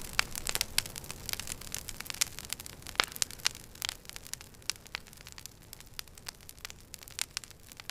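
Crackling static: irregular sharp clicks, several a second, over a low steady hum.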